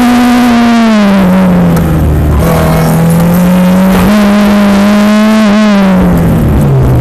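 Car engine being driven hard through an autocross course. It holds high revs, drops in pitch as the driver lifts about a second in, comes back on the throttle and picks up again around four seconds in, then winds down near the end as the car slows. Wind noise from the open top runs under it.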